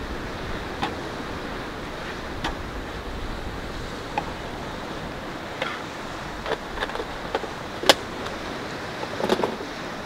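Scattered light clicks and knocks of food containers, a lid and utensils being handled on a tailgate table, the sharpest about eight seconds in, over a steady hiss of wind and surf.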